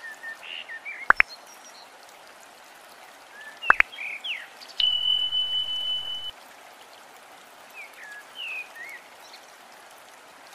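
Subscribe-button animation sound effects: two sharp clicks about two and a half seconds apart, then a steady high electronic beep lasting about a second and a half. Under them runs a steady water ambience with short chirps.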